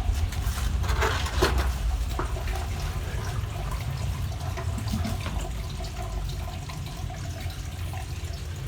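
Water running with a steady low rumble underneath, and a couple of sharp knocks about a second in.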